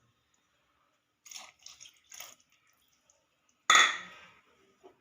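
Milk going into a pan of curry with a few short splashing and scraping sounds, then one loud clank of a metal utensil against the cooking pan that rings briefly.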